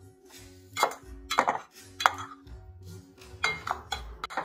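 Slotted metal spoon scraping and clinking against a metal pot in several irregular strokes, stirring a tomato masala as it fries. Soft background music runs underneath.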